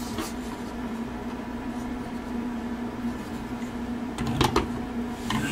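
A steady low electrical hum throughout, with a few quick plastic clacks about four and a half seconds in as the toy figures are handled.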